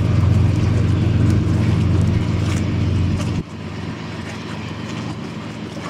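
Low, steady boat engine drone that cuts out abruptly about three and a half seconds in, leaving a fainter even background noise.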